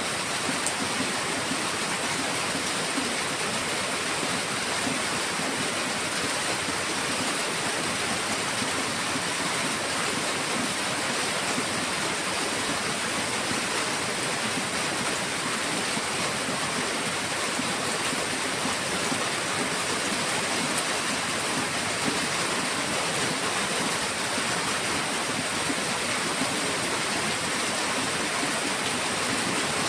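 Heavy rain falling steadily, a dense, even hiss of water with no single drops standing out.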